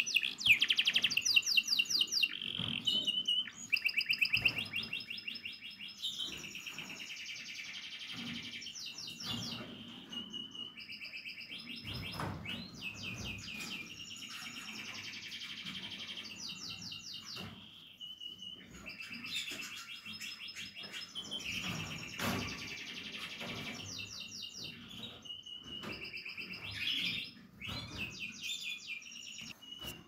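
Domestic canary singing: long runs of fast trills and rolls, broken by short held whistled notes, with a high steady whistle near the end.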